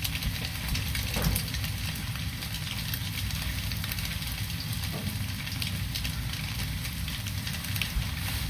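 Shredded potatoes frying in hot oil in a skillet, a steady crackling sizzle.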